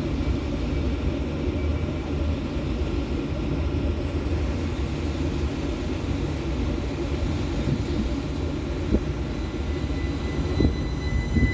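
Electric multiple-unit train at the platform: a steady low rumble and hum with thin high whines from its electrical equipment, the whines growing stronger near the end.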